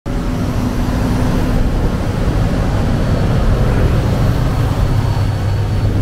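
Large farm tractors' diesel engines running steadily, a continuous low rumble.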